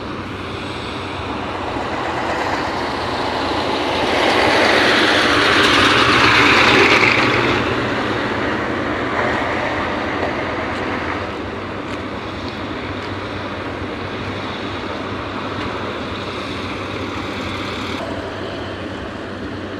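Steady low engine drone under a broad rushing noise that swells to its loudest about six seconds in, then settles back.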